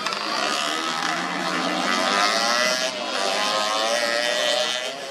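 Vespa-cross scooters' two-stroke engines revving hard while racing, the engine pitch rising and falling with the throttle and climbing about two seconds in.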